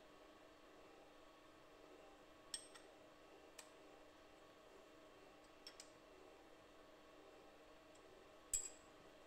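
Near silence with a few light metallic clicks and clinks, about five in all and the sharpest near the end, from a workpiece and a steel bar being handled in a milling-machine vise.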